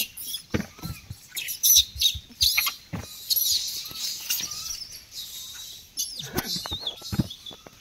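Many short, high-pitched chirps and squeaks, some sweeping upward, with scattered sharp knocks and rustles throughout.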